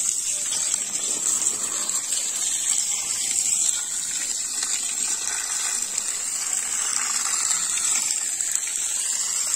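Water gushing steadily from a pipe used to water the garden plants: an even, unbroken rush.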